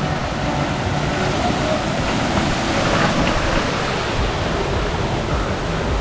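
Steady rush of water from a small waterfall, an even, unbroken noise.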